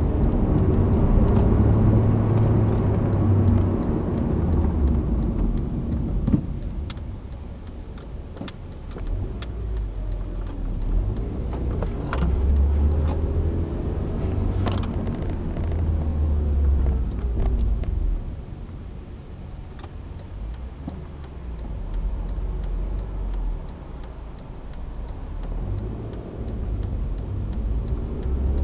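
Honda Civic heard from inside the cabin while driving: engine and road rumble rising and falling as the car speeds up and slows down, with scattered faint clicks.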